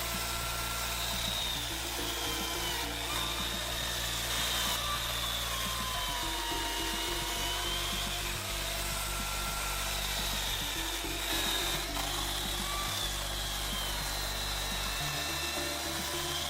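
Corded electric chainsaw cutting wood, its motor whine wavering up and down in pitch as the chain bites into the log.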